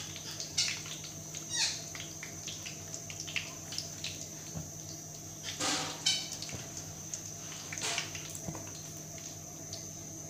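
Sheets of manda patti pastry deep-frying in hot oil in an aluminium karahi, sizzling and crackling steadily as they crisp. A wire spider skimmer scrapes against the pan a few times, loudest about six seconds in.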